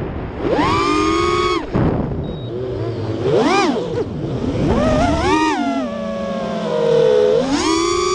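FPV freestyle quadcopter's brushless motors and propellers whining. The pitch climbs and falls with four throttle punches: about half a second in, around three and a half seconds, near five seconds, and near the end. A lower whir runs between them.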